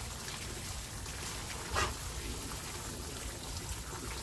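Water trickling and splashing in a plastic tub as a wet dog is washed, steady throughout, with one brief sharper noise a little under two seconds in.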